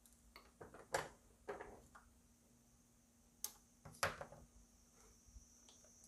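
Faint, short clicks and knocks from handling a small plastic relay and hand tools on a wooden tabletop, about four distinct taps, two near the start and two just past the middle.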